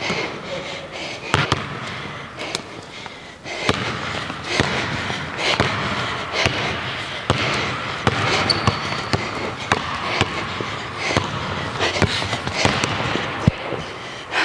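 Basketball dribbled and bouncing on a hardwood gym floor, with sharp bounces coming at uneven intervals, and a brief high squeak about eight and a half seconds in.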